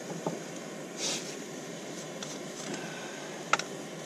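Small propane jet-boiler stove burning with a steady, even rush. A few light clicks and knocks of gear being handled cut through it, the sharpest about three and a half seconds in.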